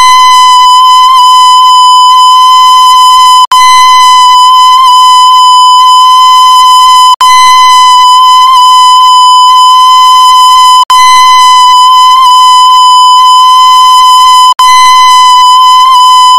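A single very loud steady tone at one pitch, rich in overtones like a held horn or whistle note, looped about every three and a half seconds with a brief cutout between repeats, four times.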